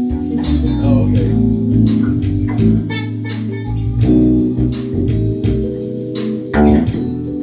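Live band jam: an electric bass guitar plays a bass line under sustained organ chords, with percussion keeping a steady beat.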